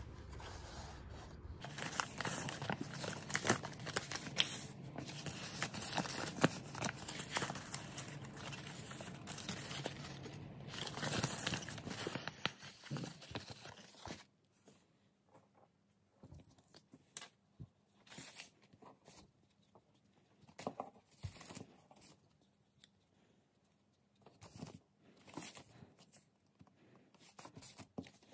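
Pleated, pre-creased letter-size origami paper crinkling and rustling as it is unfolded and handled, continuous for roughly the first half. After that, only scattered faint rustles and light taps of paper being handled.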